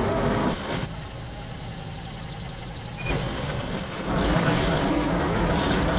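Tractor engine running steadily, with a loud high-pitched hiss that comes in about a second in and stops about three seconds in.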